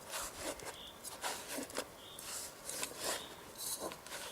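Irregular rustling and scraping of camping gear being handled, with short scratchy strokes every half second or so.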